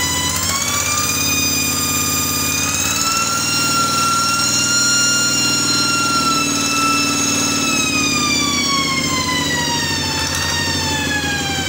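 Kubota RD 85 DI single-cylinder diesel engine running with a high, jet-like whistling whine over its rumble. The whine rises in pitch about a second in, holds, and slides back down over the last few seconds as the engine speed changes.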